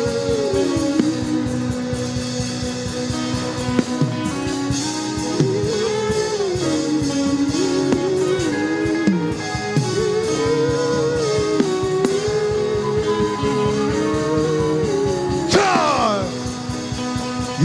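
Instrumental music playing a slow, sustained, wavering melody over a steady beat, with a sharp falling sweep about fifteen seconds in.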